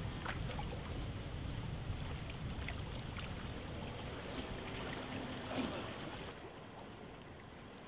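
Canal water sloshing and trickling around a person wading in waders while pushing a floating reed-bed raft, over a steady low rumble, a little quieter after about six seconds.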